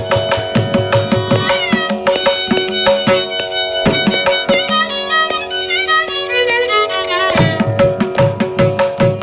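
Carnatic violin playing a gliding, ornamented melody in raga Bilahari over a steady drone, with mridangam strokes accompanying throughout.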